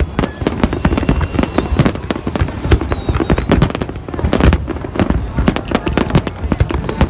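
Aerial fireworks shells bursting in quick succession, several bangs a second overlapping with crackling and a constant low rumble from a dense display.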